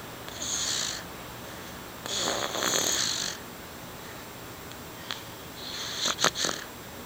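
A baby snoring while asleep: three hissy, high-pitched snoring breaths, each about a second long and a couple of seconds apart, the last one with a few small clicks.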